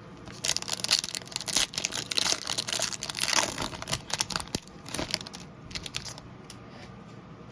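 Foil trading-card pack wrapper crinkling and tearing as it is opened and handled: a dense run of sharp crackles for about four and a half seconds, then only a few small crackles.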